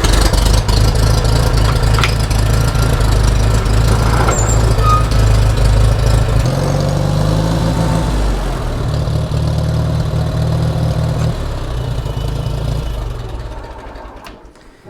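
Farmall 140 tractor's four-cylinder gasoline engine running, its speed shifting a couple of times, then winding down near the end.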